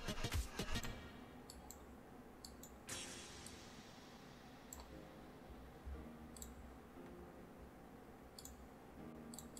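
Computer mouse clicking: a series of short, scattered clicks, several in quick pairs, over a faint low hum.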